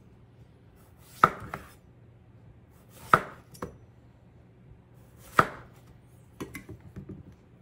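Chef's knife slicing through a large zucchini and striking a wooden cutting board three times, about two seconds apart, each cut followed by a lighter knock. A few softer knocks follow near the end.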